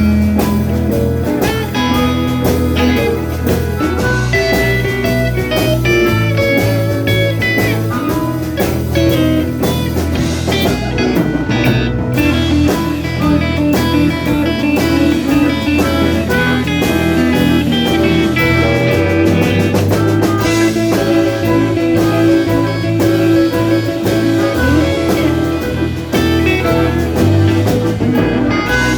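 Live blues band playing an instrumental passage: guitar over bass and drum kit.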